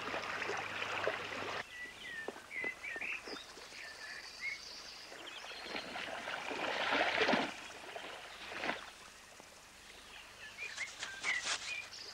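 Birds chirping in short rising and falling calls, with a spell of water splashing around the middle as hands work in shallow water. A music cue ends about a second and a half in.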